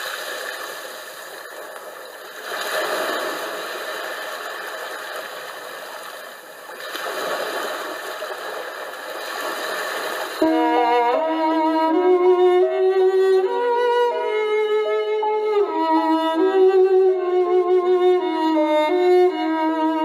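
Water rushing over rocks in a shallow river, an even hiss that swells and eases. About halfway through it cuts off abruptly, and a louder violin melody with accompaniment takes over.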